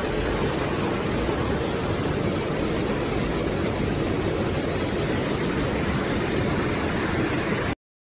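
Steady rushing noise of wind and heavy rain buffeting a phone's microphone, cutting off suddenly near the end.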